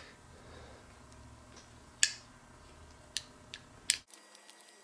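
A few light, sharp clicks of small metal parts being handled as a push-to-connect air fitting is threaded into an aluminium air cylinder. The loudest click comes about two seconds in, and three smaller ones follow near the end.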